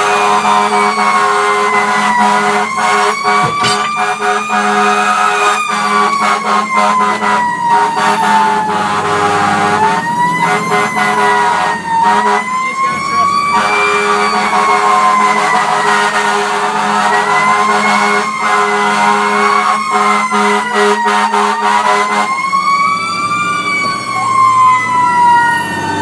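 Fire truck siren wailing, heard from inside the truck's cab, slowly rising and falling in pitch with a cycle every few seconds. Underneath runs a steady low hum that drops away about 22 seconds in.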